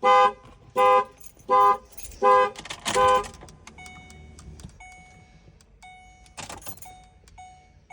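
2014 Lincoln Navigator's horn sounding in its anti-theft alarm pattern: five short, loud honks about 0.8 s apart, which stop about three seconds in as the alarm ends. After that comes a faint chime repeating at short intervals, with a single clunk about six and a half seconds in.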